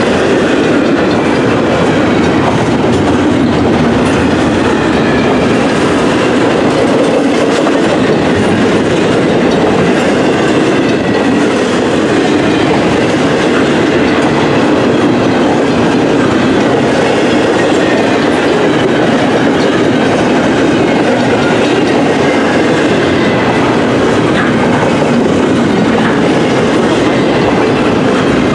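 Double-stack intermodal container well cars rolling past: a loud, steady rumble of steel wheels on rail with clickety-clack over the joints, and a faint high wheel squeal drifting in and out.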